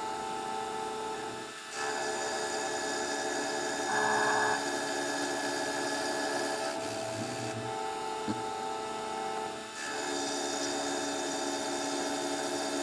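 Vertical milling machine running, its end mill cutting a steel T-nut with a steady whine and scraping cut. The sound dips briefly twice and picks back up.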